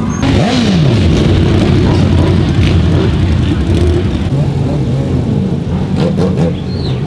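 Large sport motorcycle engines running at low speed as the bikes pull away, with a quick rev that falls away in the first second. The engine note changes about four seconds in, against crowd chatter.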